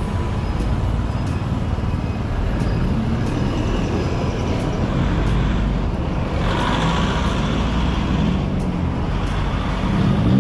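Road traffic: engines of passing cars and motorcycles over a steady low rumble. A car goes by about six to eight seconds in, and a motorcycle engine rises and falls near the end.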